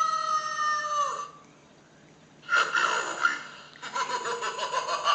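A voice making spooky Halloween sounds: a long, high, held 'ooo' that drops away about a second in. After a short pause comes a breathy burst, then a rapid fluttering cackle-like warble near the end.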